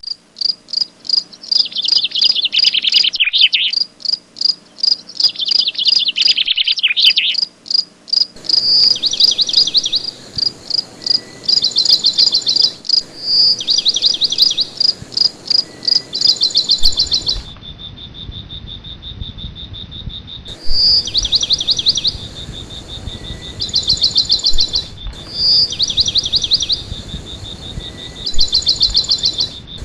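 Crickets chirping in loud, repeating pulsed trills, with bird calls mixed in; about halfway through, a steady high insect trill joins underneath.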